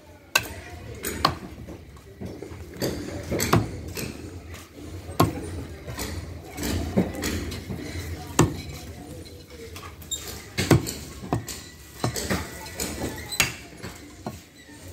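A heavy butcher's cleaver chopping beef on a wooden chopping block: a dozen or so sharp chops at uneven intervals, with voices in the background.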